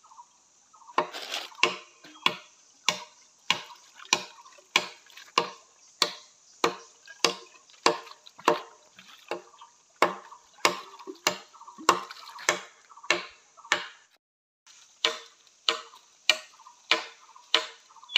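Steady chopping with a blade into a bamboo pole: sharp strikes a little under two a second, each with a short ring, breaking off briefly near the end before carrying on.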